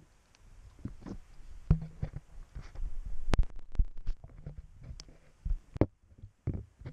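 Irregular low thumps and rumbles with scattered sharp clicks on the camera's microphone, the kind of noise that wind buffeting and handling make. The sharpest knocks come in the middle and near the end.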